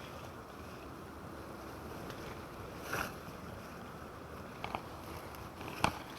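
Mountain stream water running steadily, with a few short sharp knocks: one about halfway through, two close together later, and the loudest near the end.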